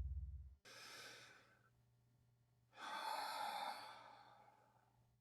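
A person breathing faintly: a short breath about a second in, then a longer sigh-like breath in the middle. A low drone fades out at the start.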